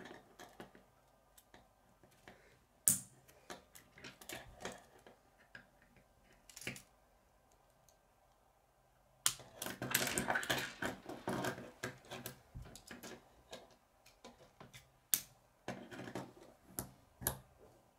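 Hard plastic K'nex rods and connectors clicking and rattling in the hands as they are fitted together: scattered sharp clicks, one loud one about three seconds in, a busy stretch of clicking in the middle and a few more clicks near the end.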